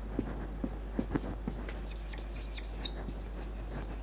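Marker pen writing on a whiteboard: several short, sharp strokes in the first second and a half as letters are drawn, then fainter scratching.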